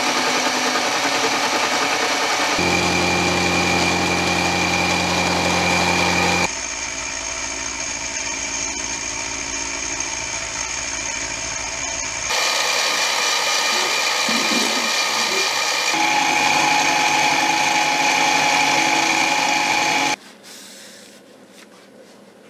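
Benchtop mini milling machine running with its end mill cutting along the side of a steel bar, truing up the edge: a steady motor whine with several tones. The tone and loudness change abruptly several times, and it drops much quieter about 20 seconds in.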